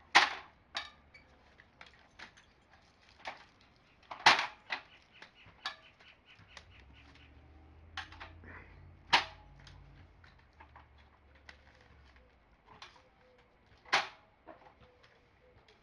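A series of sharp knocks and clacks at uneven intervals, the four loudest spaced roughly five seconds apart, with fainter taps between them.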